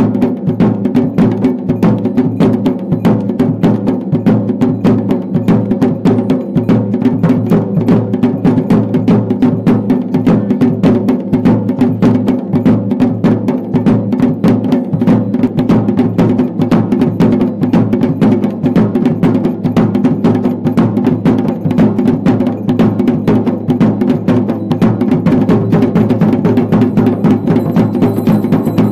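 Traditional folk drums beating a fast, continuous rhythm of dense strikes at a steady, loud level.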